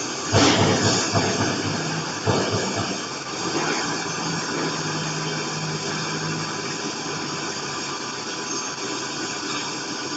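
TIG welding arc hissing steadily, with louder surges about half a second and two seconds in.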